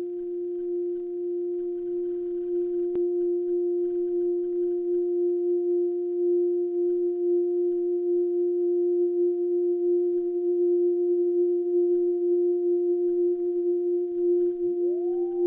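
A steady electronic drone held on one low, pure pitch with a faint overtone, slightly wavering in level. Near the end a second tone glides quickly upward to join it.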